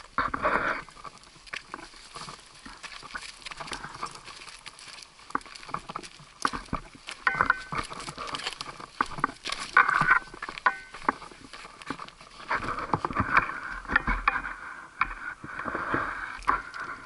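Footsteps crunching and scuffing on a rocky, gravelly trail, uneven steps with small stones clattering underfoot, close to the microphone.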